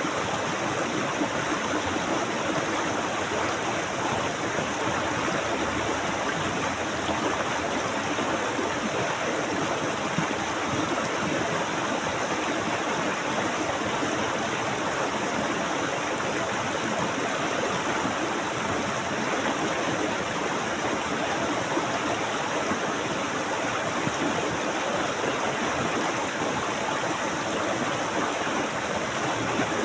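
Flowing water in nature, a steady rushing with no breaks or changes.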